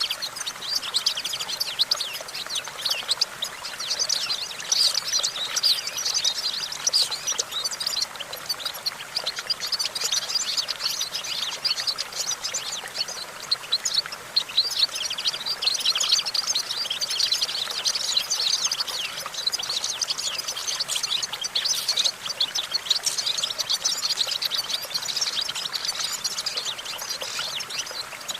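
European goldfinch singing: a continuous run of rapid, high twittering and trilling notes.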